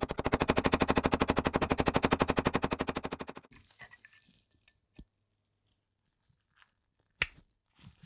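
Rapid, even metal tapping, about a dozen strikes a second, on a pin punch set on the hinge pin of a Zippo lighter insert's cam. It stops about three and a half seconds in, followed by a few faint metal clicks and one sharp click near the end as the small steel parts are handled.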